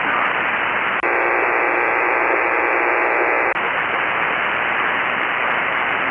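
Single-sideband shortwave receiver hiss and static on the 40-metre band, cut off above about 3 kHz; the other station's signal is only about two S-units over the noise level. About a second in, the hiss narrows and carries a faint steady buzz for a couple of seconds, then opens back up to full hiss.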